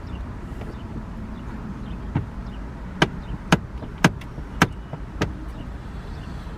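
A run of six sharp knocks about half a second apart, over a steady low rumble.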